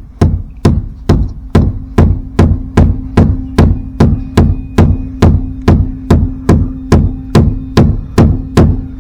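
Ball-peen hammer striking metal in a steady rhythm, about two and a half blows a second, with a low ring that carries on between blows, as a part is driven into place.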